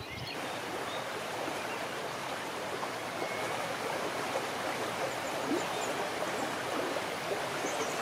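Small river running over a shallow rocky riffle: a steady rush of splashing water.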